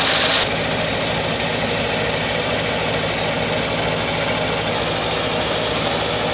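Truck engine idling steadily, with a steady high hiss over it.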